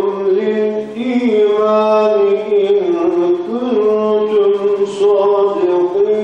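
A male hafız reciting the Quran in the melodic tajwid style, unaccompanied, with long held notes bent into ornamented turns and a short breath about a second in.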